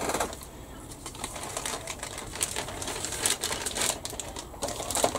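Crinkling and rustling of a clear plastic bag around a plastic model kit sprue being handled: a dense, irregular run of small crackles.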